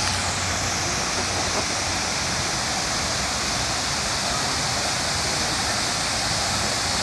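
Steady rushing of falling water from a fountain or waterfall, even and unbroken.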